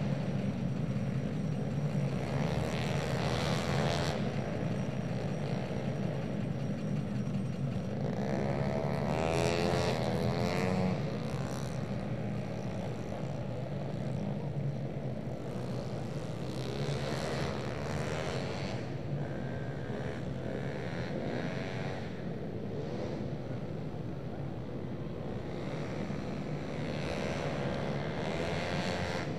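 Race-tuned 131cc automatic scooter engines buzzing at high revs as racing scooters pass through the circuit. The sound swells and fades several times, with the pitch rising and falling as riders go by.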